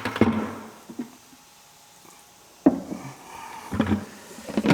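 A few separate knocks and clunks of equipment being handled, with a quiet pause between them; no pressure washer running.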